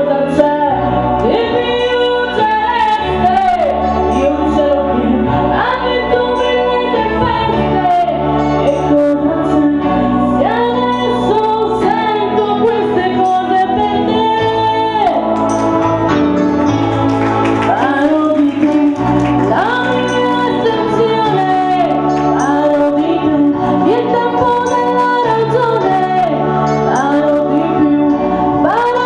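A woman singing into a handheld microphone, her voice amplified through a PA speaker over instrumental accompaniment. She holds long notes with vibrato.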